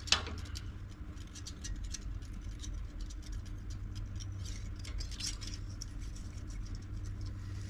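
Light, scattered ticks and small creaks as a shop press slowly forces a water pump's hub down onto its shaft, with one sharper click right at the start, over a steady low hum.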